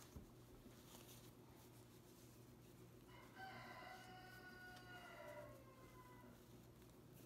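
A chicken gives one long, drawn-out call about three seconds in, lasting over two seconds and sliding slightly down in pitch.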